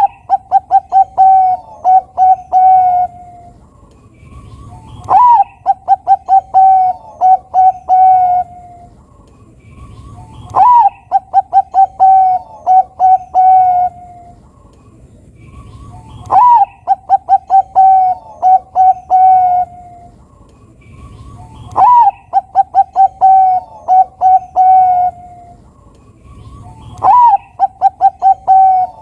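Zebra dove (perkutut, Bangkok-bred male) singing its cooing song, about six times, one phrase roughly every five and a half seconds. Each phrase opens with a sharp higher note, then a quick stutter of short notes, and ends in several drawn-out lower coos.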